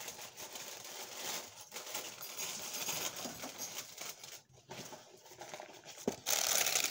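Paper packaging rustling and crinkling as items are handled and moved in a box, with small clicks and taps; it gets louder about six seconds in as wrapping is pulled out.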